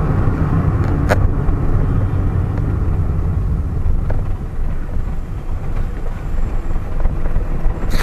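Cabin noise of a Maruti Suzuki Alto K10 on the move: a steady low engine and road rumble from its small three-cylinder petrol engine and tyres, with one sharp click about a second in.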